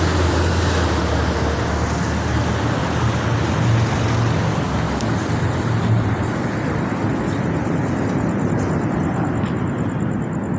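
A city bus's engine drones close by and fades out about halfway through. Beneath it runs a constant low, rumbling roar of countless distant fireworks going off across the city, with a few faint pops.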